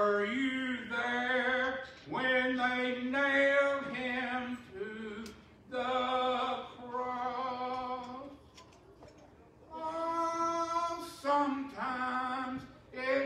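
A solo voice singing unaccompanied, in phrases of long held notes with short pauses between them.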